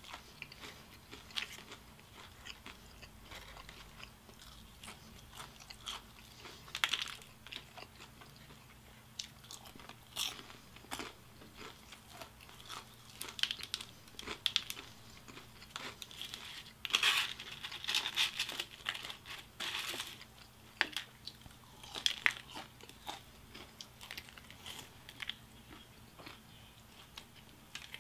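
Close-up eating of KFC Extra Crispy fried chicken: crisp bites and crunchy chewing in irregular bursts, densest about 17 seconds in.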